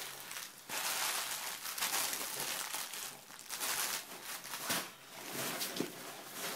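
A soft fabric carrying bag and plastic wrapping rustling and crinkling in uneven patches as they are handled and searched through.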